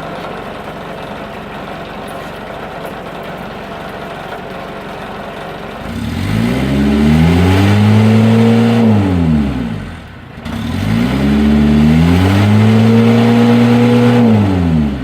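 Mitsubishi L300's diesel engine idling, then revved up twice from about six seconds in: each time the revs climb, hold high for a few seconds and drop back to idle.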